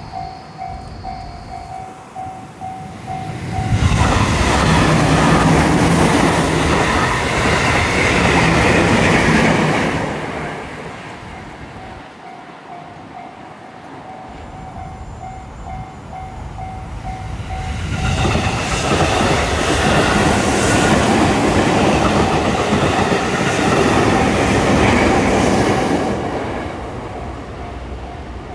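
Railroad crossing alarm ringing in a steady, rapid repeating tone while two trains pass in turn, about four seconds in and again about eighteen seconds in. Each train's rumble and wheel clatter lasts six to eight seconds and drowns out the alarm before fading.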